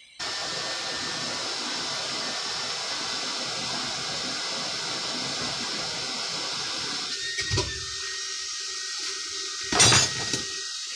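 Coal forge fire burning under a forced-air blast: a steady rushing noise with crackling that starts suddenly. Near the end the crackle drops away and two sharp knocks sound, about two seconds apart.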